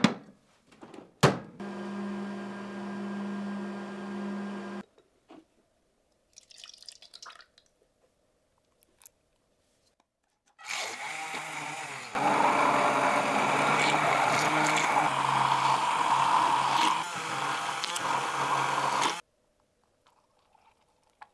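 Two clicks, then a small electric kitchen appliance motor hums steadily for about three seconds. After a pause of several seconds a motor runs again, louder and noisier, for about eight seconds and stops abruptly.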